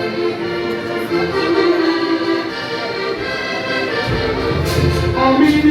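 Background music with sustained instrumental tones; a low bass part comes in about four seconds in.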